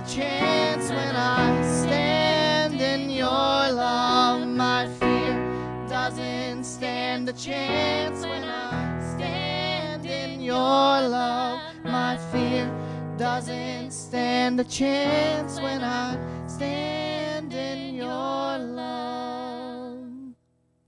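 Worship band playing a contemporary worship song: a woman singing lead over acoustic guitar and keyboard. The music stops abruptly near the end.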